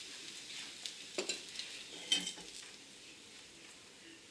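Slice of bread sizzling in a frying pan over a strong gas flame, a faint steady hiss with a few small clicks.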